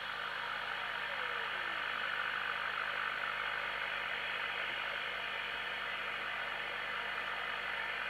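DNT M40 FM CB radio's loudspeaker giving a steady receiver hiss, turned up loud. A faint whistle falls in pitch over about a second and a half early on, as the receive-frequency trimmer is turned back toward the 455 kHz marker signal to bring the receiver on frequency.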